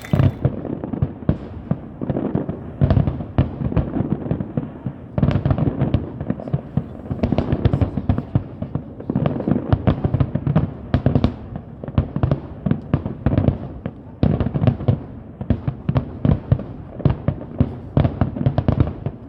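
Aerial fireworks display going off in a rapid, dense barrage of bangs, several a second with no let-up.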